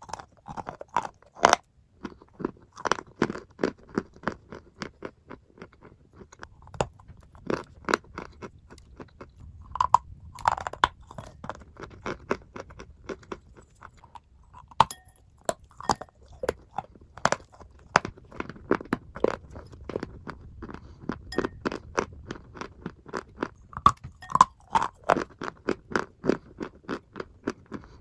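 A block of white chalk being bitten and chewed close to the microphone: a steady run of sharp crunches, with a louder bite every few seconds.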